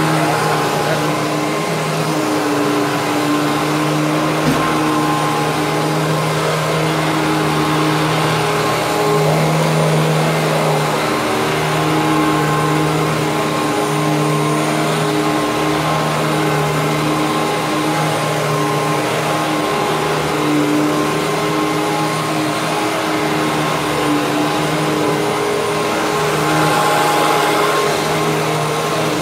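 Hoover Twin Chamber upright vacuum cleaner running steadily on carpet, its motor hum and airflow hiss wavering slightly in pitch and level as it works.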